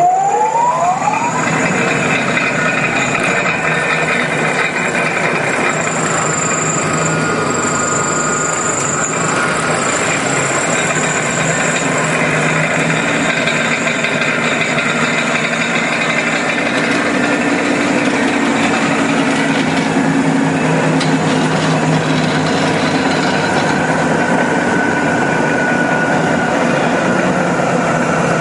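Cornell D16 Versator (a disc-type deaerator with a 10 hp motor drive) running: its rising whine as it spins up ends about a second in, then it runs with a steady hum and whine.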